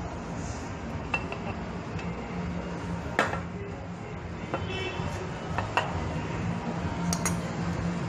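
Several sharp metallic clinks and taps as the brass fittings of refrigerant charging hoses, an R134a can valve and a gauge manifold are handled, over a steady low hum.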